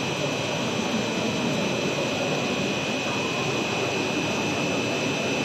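Cast stretch film production line running: a steady machine drone with several constant high-pitched whines over it.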